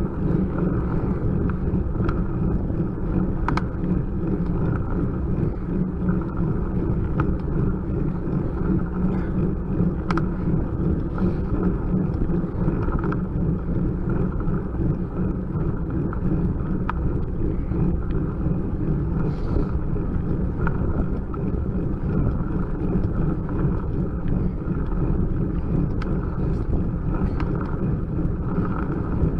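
Steady rumble of a road bicycle climbing slowly on tarmac: tyre and road noise carried through the bike-mounted camera, with wind buffeting the microphone and a few faint ticks.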